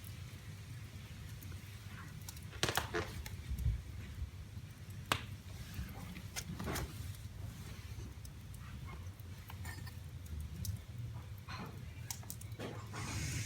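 Wood fire burning in a fireplace: a steady low rumble of flames with scattered crackles and sharp pops as the wood bursts. A hiss rises near the end.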